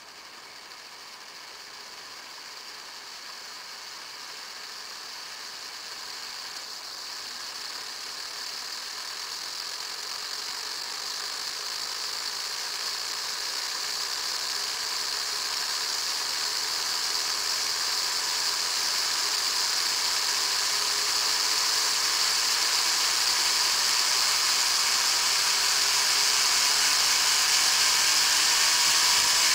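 Miniature one-inch (25.4 mm) Tesla turbine spinning up on air fed through its inlet tube. A high hiss grows steadily louder, and a whine rises in pitch over the last third as the rotor gains speed.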